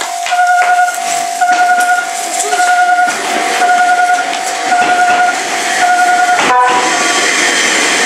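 Japanese level-crossing warning bell ringing, an electronic tone repeating about once a second, as an Enoshima Electric Railway (Enoden) train approaches. The train's rumble grows louder from about three seconds in, and the bell pattern breaks off about six and a half seconds in as the car runs across the crossing.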